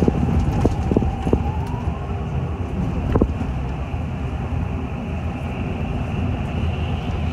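Riding inside a city bus on the move: a steady low rumble of engine and road, with a whine that rises in pitch about a second and a half in. A few sharp rattling clicks come in the first few seconds.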